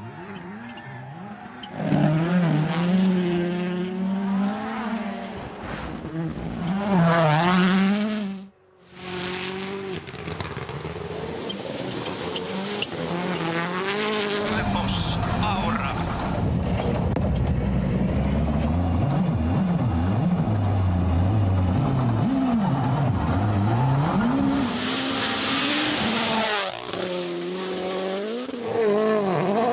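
Rally cars' engines at full effort, the pitch climbing and dropping again and again through gear changes and lifts, with tyre noise on the loose surface. The sound cuts off abruptly about eight seconds in before another car's engine takes over.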